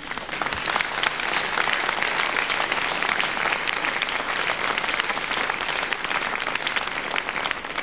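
A theatre audience applauding steadily, many hands clapping at once, after a comedy punchline. The applause stops abruptly near the end.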